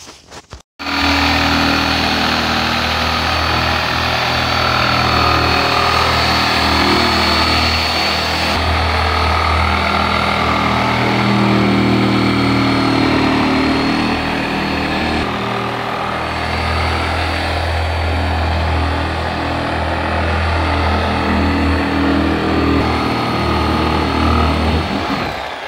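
Handheld electric power tool running steadily with a high whine as it cuts through the plastic wall of an IBC tote. It starts about a second in and stops just before the end.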